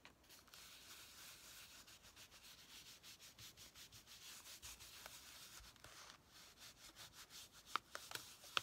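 Ink blending tool rubbed over paper through a stencil in quick, repeated scrubbing strokes, several a second, quiet and dry. A couple of light taps follow near the end.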